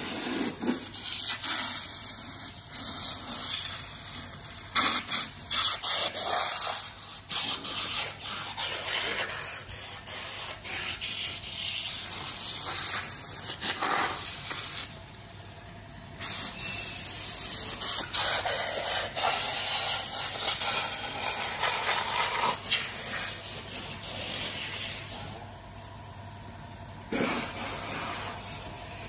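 Hose-fed spray gun hissing in long bursts over a large wooden burl, with short breaks about halfway through and again near the end.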